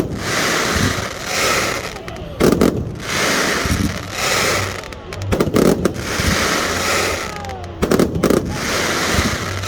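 Fireworks going off in repeating volleys, about every two and a half to three seconds: a second or two of dense crackling, then a quick cluster of loud bangs, with an occasional whistle.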